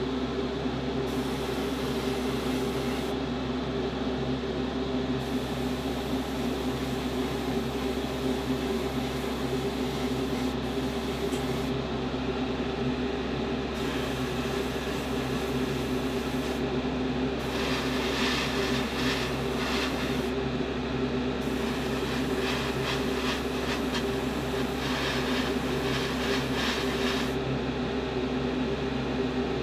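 Spray-booth extraction fan running with a steady hum. In the second half, several short stretches of hissing come and go over it.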